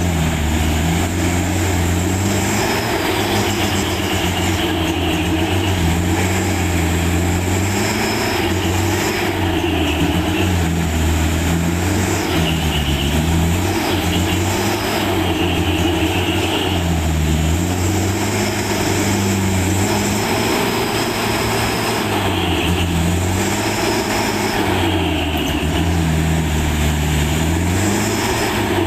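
A truck's diesel engine running under load, its revs rising and falling repeatedly as it works over the rough road.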